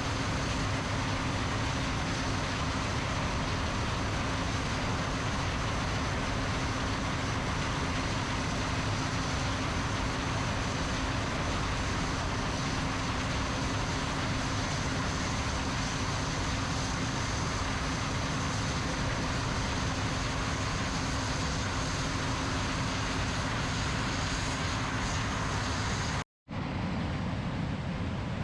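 John Deere combine harvester running steadily while harvesting corn: a continuous engine drone with a constant low hum and a high whine. Near the end the sound cuts off abruptly for a moment, then similar machine noise resumes.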